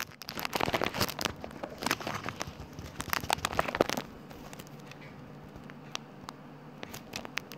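Handling noise of a phone camera being set up: rubbing, crackling and clicking against the microphone, which stops about four seconds in, leaving a faint low hum and a few light clicks.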